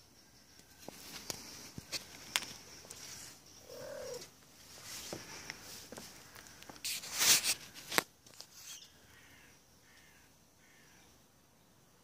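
Phone handling noise: scattered clicks and knocks, with a louder rustle and bump about seven to eight seconds in as the camera swings across the garden. A short animal call sounds about four seconds in.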